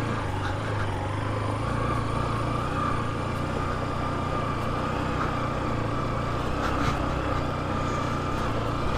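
Motorcycle engine running steadily at an even throttle while the bike is ridden over a dirt track, heard from the handlebars with a constant hiss of wind and road noise.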